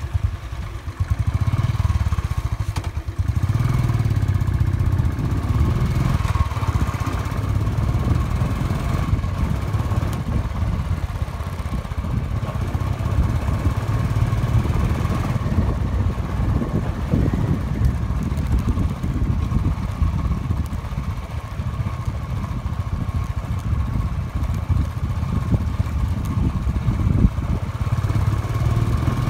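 Motorcycle engine running steadily as the bike rides along a rough track.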